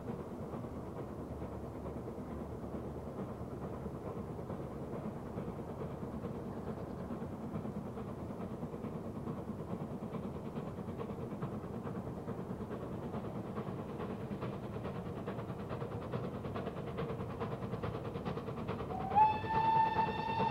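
BR Standard Class 4 4-6-0 steam locomotive No. 75078 working a train away, its exhaust beating steadily. Near the end its steam whistle sounds loudly, sliding up at the start into one held note.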